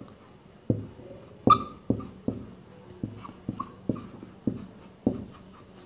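Marker pen writing on a whiteboard: a string of short, irregular strokes and taps, with a few brief squeaks of the tip on the board.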